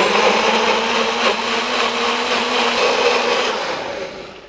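Personal bullet-style blender running at full speed, blending soft cooked broccoli and its cooking juices into a sauce. It runs steadily, then winds down near the end as the cup is released.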